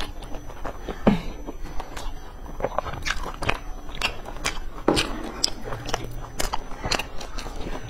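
Close-miked chewing and biting of fried food, with irregular crunches and mouth clicks several times a second.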